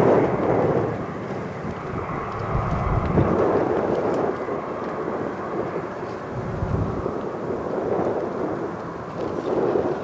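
Jet airliner's engine noise fading away just after it passes low overhead on its landing approach. Strong wind buffets the microphone in low rumbling gusts.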